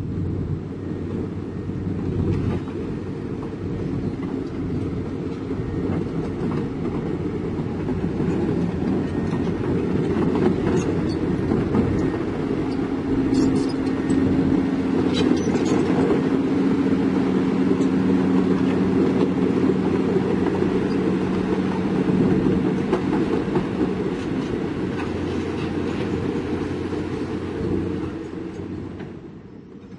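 Heavy diesel construction machinery running with a steady low engine rumble, with a few sharp metallic knocks around the middle.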